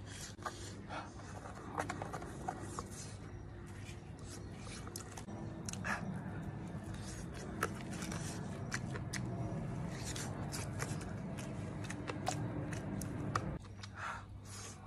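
Chopsticks clicking and scraping against a metal lunch tin while food is bitten and chewed, many short sharp ticks at an irregular pace. Under them runs a steady low hum that cuts off near the end.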